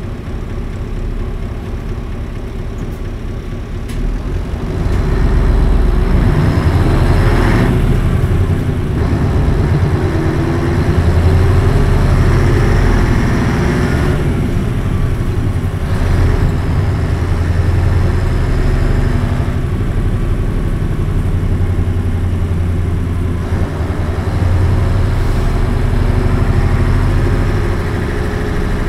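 Isuzu Cubic KC-LV280N city bus's V8 diesel engine, heard from on board: it runs low for about the first four seconds, then gets louder as the bus pulls away and keeps running under load, with a brief dip in level near the end.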